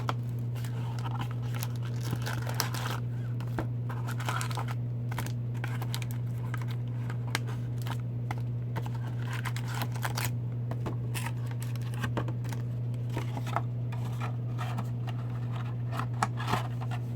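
Plastic shrink wrap being torn and crinkled off a hockey card hobby box, many sharp crackles coming and going, over a steady low hum.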